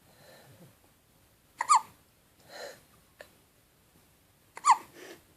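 Baby hiccuping twice, about three seconds apart, each a sudden squeaky catch of the voice that falls in pitch, with a soft breath between.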